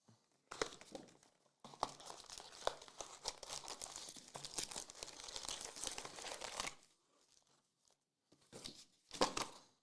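Wrapper of a trading-card pack being torn open and crinkled by hand: a brief rustle, then several seconds of continuous crackling, and two short crinkles near the end.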